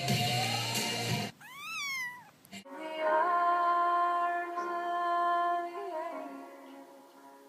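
Music with a woman singing cuts off about a second in. A cat then gives a single meow that rises and falls, followed by a long, steady, drawn-out tone lasting about three seconds that fades near the end.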